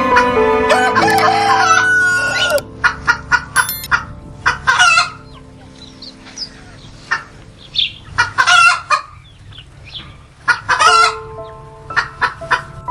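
Bird calls over background music: after a couple of seconds of music, a long series of short, sharp calls comes in quick clusters.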